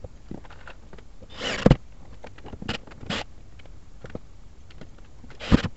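Short scraping and rustling noises from electrical wires being worked into an open metal electrical box, with a few separate strokes. The loudest stroke comes about a second and a half in and another comes near the end, each with a sharp click.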